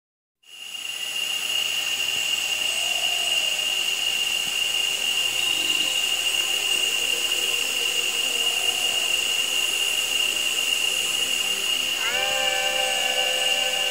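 Rainforest insects droning, a steady high-pitched whine that fades in at the start. Near the end, several held tones come in with a short upward glide.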